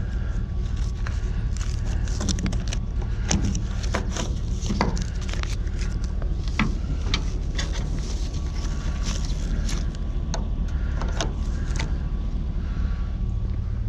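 Scrap items being handled, with irregular knocks, clicks and clatter over a steady low rumble.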